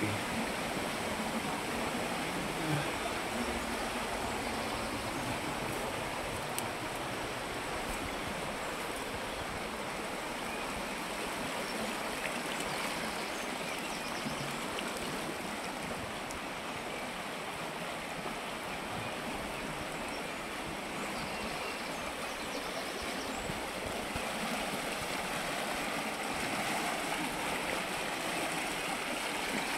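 Shallow river rushing steadily over small cascades through a narrow rock channel.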